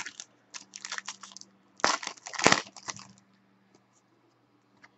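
Trading card pack wrapper crinkling and tearing as a pack is opened by hand: a run of rustling bursts over the first three seconds, loudest in the middle, then nearly quiet.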